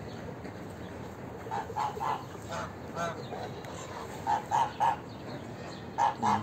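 Helmeted guineafowl calling: short, harsh notes in quick runs of two or three, repeated several times after about a second and a half.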